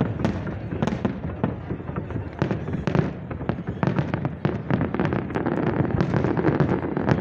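Fireworks display: a dense, irregular barrage of bangs and crackles, several a second, over a continuous low rumble.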